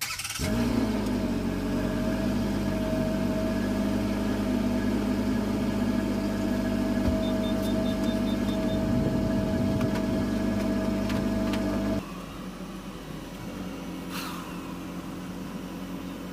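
Toyota Tacoma V6 engine cranking and starting, then running at a steady fast idle; about twelve seconds in it drops abruptly to a lower, quieter idle.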